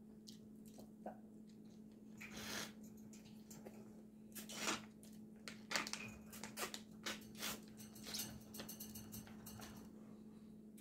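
Quiet eating noises close to the microphone: scattered small clicks and short crunches of chewing and handling food, over a steady low hum.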